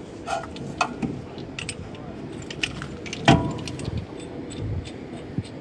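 Metal clinks and clatters of a brake piston wind-back tool and its adapters being handled, with one louder ringing metal knock a little past halfway.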